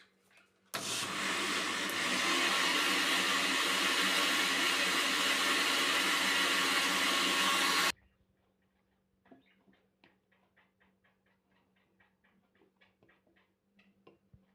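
A motorised household appliance runs steadily for about seven seconds, switched on suddenly and cut off suddenly. Faint light clicks follow.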